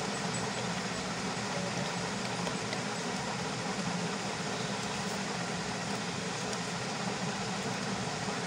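Steady background hum with an even hiss, unchanging throughout, like a fan or machine running; no distinct paper-folding sounds stand out.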